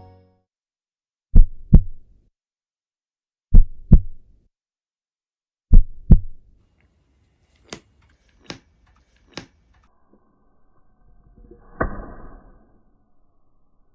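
A heartbeat sound effect: three double thumps, lub-dub, about two seconds apart. Then three sharp clicks, and about twelve seconds in a short sudden burst with a noisy tail that fades.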